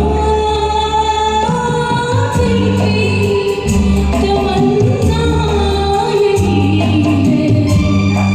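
A woman singing a Hindi song over a karaoke backing track, with long held notes above a steady repeating bass line.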